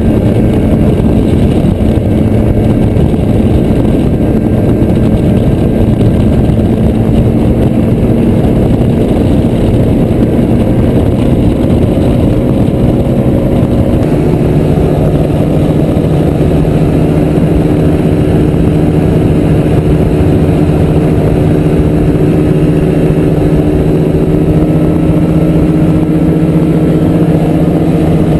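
XCitor paramotor engine running steadily in flight, its note settling lower about halfway through.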